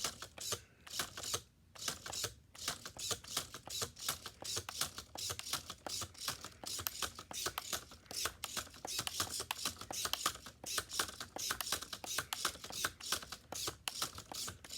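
Fantastic Gymnastics toy clicking rapidly and unevenly as its button is worked to flip the plastic gymnast around the bar.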